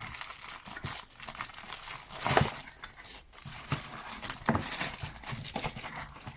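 Product packaging being opened and handled: crinkling and rustling with irregular clicks and knocks, loudest about two and a half seconds in.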